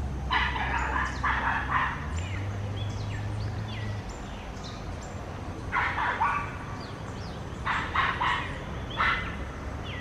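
Parakeets calling in short bursts of harsh, repeated notes: a group in the first two seconds, then more about six, eight and nine seconds in. Thin high whistled notes sound between the bursts.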